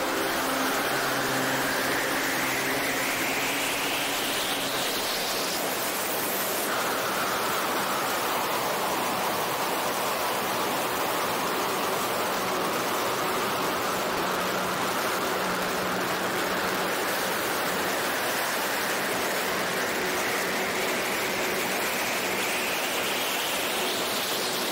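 Steady rush of airflow over a camera mounted on a 1/5 scale P-38 Lightning model in flight, over the drone of its twin DLE-55 single-cylinder two-stroke petrol engines. A high whine climbs over the first few seconds, then dips and slowly climbs again.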